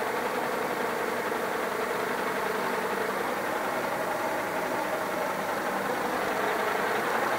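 A steady mechanical hum with a few faint held tones in it, even in level throughout, of the kind an idling engine or running machinery makes.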